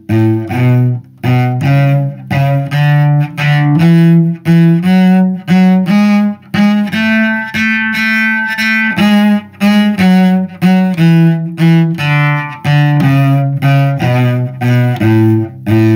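Solo cello playing a one-octave A major scale up to the high A and back down. It is bowed in short, detached hooked-bow strokes in 6/8, the note changing with every change of bow direction.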